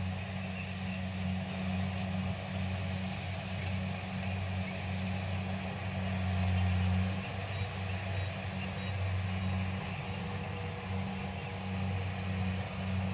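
Kubota DC-70 rice combine harvester running steadily, a low diesel drone that swells a little about six to seven seconds in.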